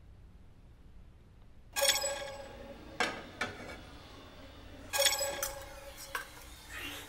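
Metal frying pan clanking against a gas stove's burner grate: two sharp clanks that ring on for about a second, one about two seconds in and one about five seconds in, with lighter knocks between them.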